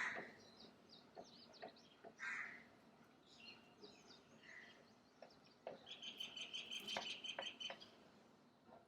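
Several birds chirping and calling: short chirps and calls scattered through, then a rapid trill of quick repeated notes starting about six seconds in and lasting nearly two seconds.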